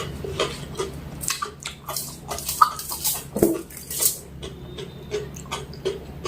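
Close-up wet chewing and lip-smacking of someone eating mutton curry with rice: a quick, irregular run of smacks and clicks.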